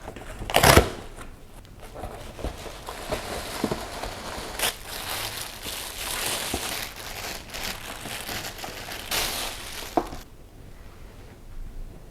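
Packaging crinkling and rustling as it is handled and opened, with a few sharper crackles; it dies down near the end.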